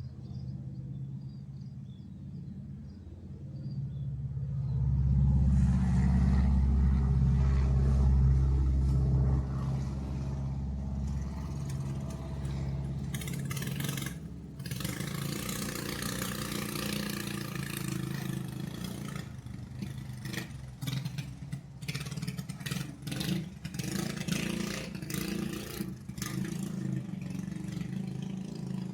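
A motor engine running steadily. It grows louder about five seconds in, with a heavy low rumble for several seconds. From about halfway through, a dense rattling clatter joins it.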